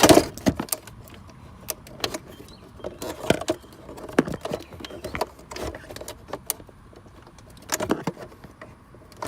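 Scattered plastic clicks, knocks and rattles as the instrument cluster of a 2004 Chevy Impala is worked loose from the dash and its wiring connector is squeezed and pulled free; the loudest knock comes right at the start.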